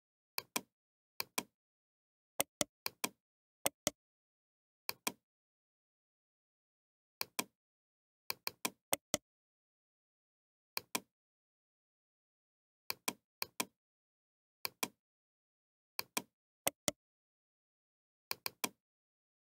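Computer mouse clicking: short sharp clicks, mostly in pairs and small clusters every second or two, with dead silence between them.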